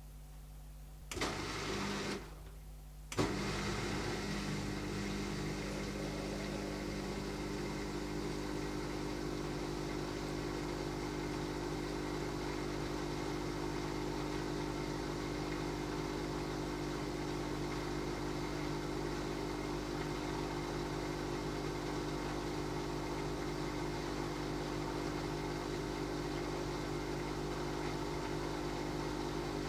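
Beko DWD5410W dishwasher running: a steady motor hum with a few held tones. It comes on briefly about a second in, stops for a moment, then starts again and runs evenly.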